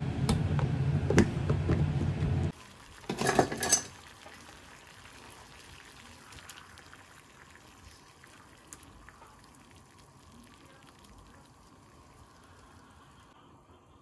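Water at a rolling boil in a pot with tomatoes blanching in it, a soft steady bubbling hiss for most of the clip. It opens with a low hum and a couple of sharp clicks as a plastic lid goes onto a container, cut off abruptly, followed a second later by a brief loud clatter of kitchenware.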